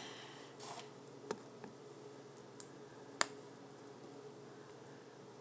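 Faint clicks and taps of a wire whisk spreading thick pudding in a dish, with one sharper click about three seconds in, over a low steady hum.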